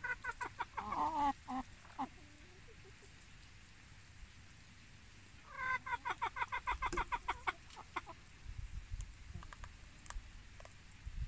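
A chicken clucking in two bouts of quick repeated notes, one at the start and another about five and a half seconds in.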